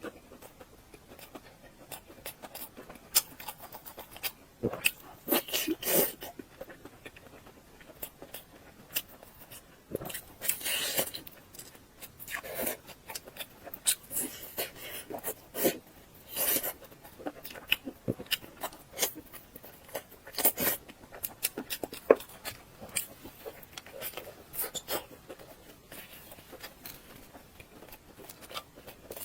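Close-miked eating sounds: irregular wet clicks and smacks of chewing, with a few longer noisy stretches such as slurps or mouthfuls.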